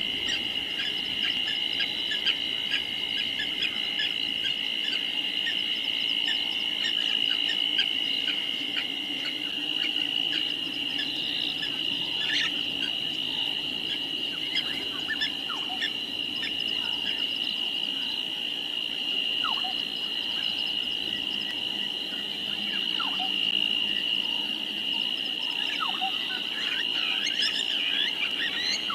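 A steady, unbroken chorus of insects trilling in the African bush, with a second trill dropping out about nine seconds in, a low steady hum beneath, and a few short falling calls in the second half.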